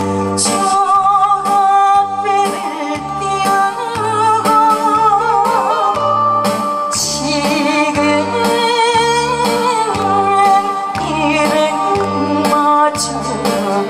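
A woman singing with vibrato into a microphone over an amplified accompaniment with a steady, evenly pulsing bass beat.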